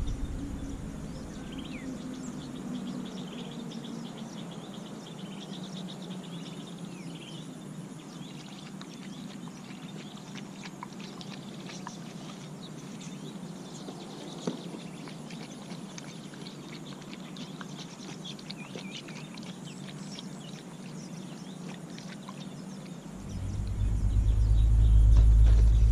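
Birds chirping over a steady low hum. About 23 s in, a loud low rumble sets in.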